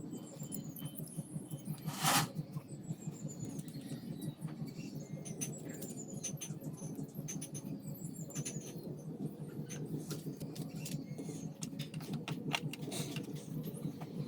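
A run of light clicks and taps, with one louder knock about two seconds in, over a steady low hum, and short high chirps in falling runs.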